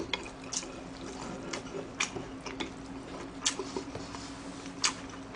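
Close-miked chewing of instant ramen noodles: soft mouth clicks and smacks, about one a second, over a faint steady hum.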